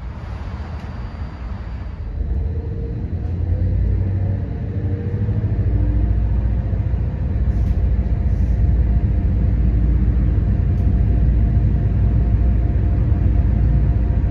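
Stadler GTW diesel train heard from the passenger compartment: a low rumble of the diesel power pack and running gear, with a steady hum of engine tones. It grows louder over the first several seconds, the tones rising a little, then holds steady.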